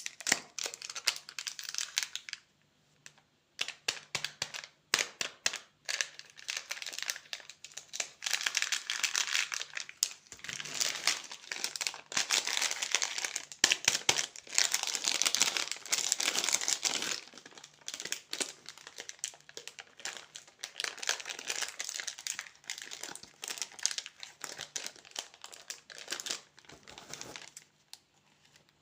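Plastic candy wrappers crinkling as they are handled and opened, in irregular crackles that thicken into a dense stretch in the middle.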